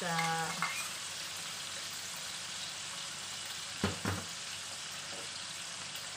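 Shrimp frying in hot oil in a wok, a steady sizzling hiss. Two sharp knocks come about four seconds in.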